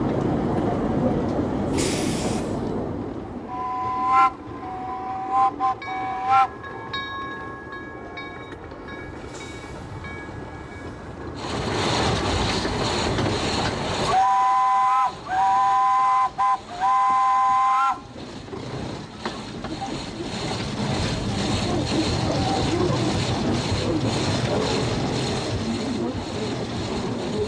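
Orenstein & Koppel 0-4-0 steam locomotive running, heard from the cab, with a short hiss about two seconds in. Its steam whistle gives a few short toots a few seconds in, then about halfway through it sounds long, long, short, long: the grade-crossing signal.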